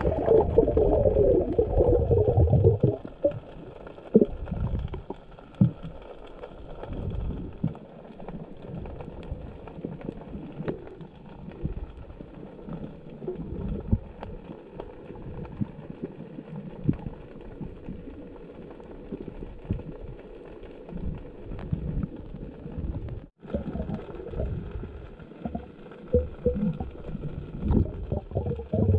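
Muffled underwater noise through a camera's waterproof housing: low rumbling and gurgling water, louder for the first three seconds.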